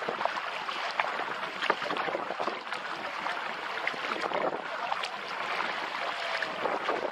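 Sea water splashing and lapping against a kayak: a steady rush full of small splashes.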